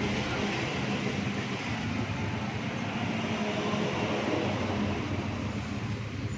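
Steady mechanical rumble with a low hum.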